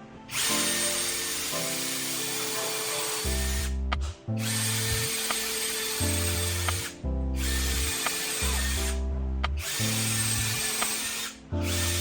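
Power tool running loudly in stretches of two to three seconds, cutting out briefly four times, over background music with a bass line.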